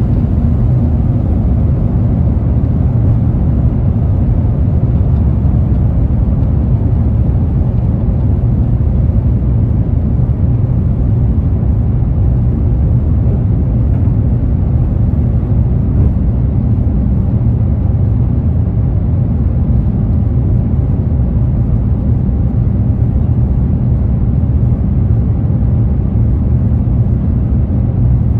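Cabin noise of an Airbus A350's Rolls-Royce Trent XWB engines at takeoff thrust, heard from inside the cabin over the wing: a steady, loud low rumble of engine and airflow noise through lift-off and the initial climb.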